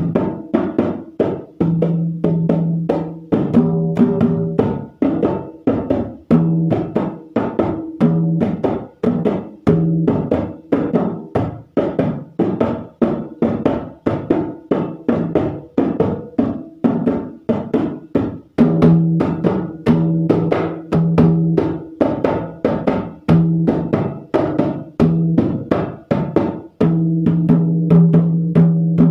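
Dholak, a two-headed barrel hand drum, played with both hands in a fast, continuous rhythm: a dense run of sharp hand strokes over a ringing low bass tone that comes and goes.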